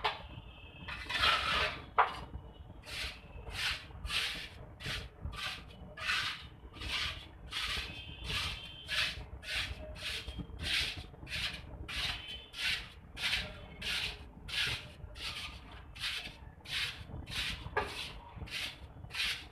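A hand tool scraping grooves into a wet cement mortar bed for a granite floor slab, in quick repeated strokes at about two a second. A couple of sharp knocks come near the start.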